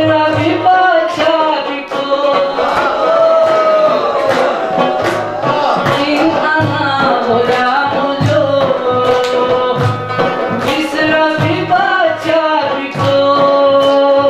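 Chitrali (Khowar) folk song: a man singing over plucked-string accompaniment and a steady hand-drum beat.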